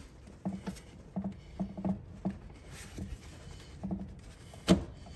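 Rubber intake boot being worked onto a Porsche Boxster 986 throttle body by gloved hands: a run of small irregular knocks and rubs, with one sharper knock about four and a half seconds in.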